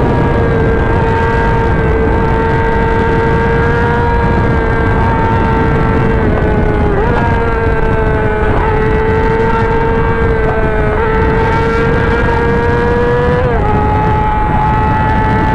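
Yamaha YZF-R6's inline-four engine running steadily at high revs, a sustained high-pitched whine. The pitch dips and recovers briefly a few times around the middle and steps down slightly near the end, over a constant low rushing noise.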